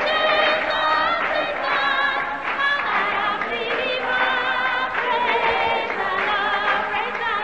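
A choir singing gospel music, voices holding long notes with vibrato.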